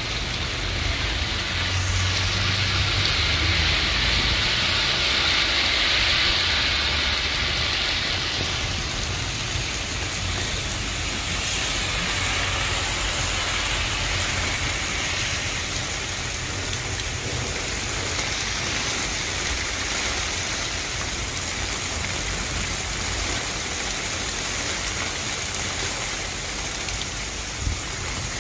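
Heavy thunderstorm downpour of rain and hail, an even, dense hiss, a little louder in the first several seconds.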